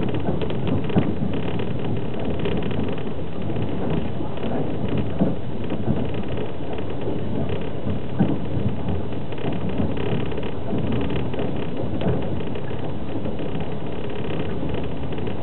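Steady rumble inside a moving passenger railway car, a platskart car of an express train, heard by the window. Wheels run on the rails, with a few sharp knocks now and then.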